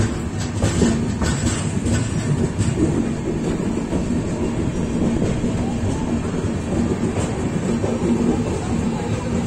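Puri–Sealdah Duronto Express passenger train running out of the station, heard through an open coach door: a steady rumble of wheels on rail, with several sharp clacks over rail joints in the first couple of seconds.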